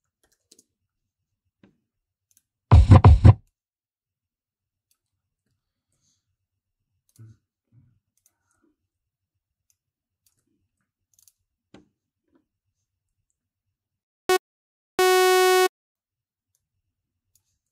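Faint mouse and keyboard clicks while short audio samples are auditioned in music software. About three seconds in comes a loud burst of four quick bass-heavy hits. Near the end a short blip is followed by a steady buzzing tone under a second long that cuts off abruptly.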